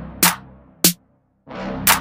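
Background electronic music with a drum-machine beat of sharp snare-like hits; it cuts out briefly about a second in, and the beat comes back near the end.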